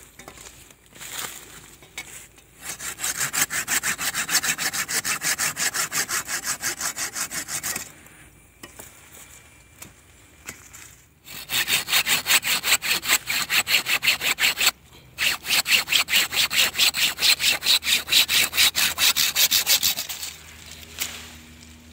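Hand pruning saw cutting through a thick green fig branch with fast back-and-forth strokes, about five a second. It saws in a long run, pauses for about three seconds, then saws again in two more runs with a brief stop between them.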